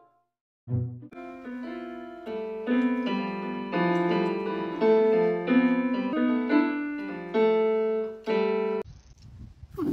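Piano notes played one after another in a slow, halting run, a new note about every half second. The notes cut off abruptly near the end, and a short burst of noise follows.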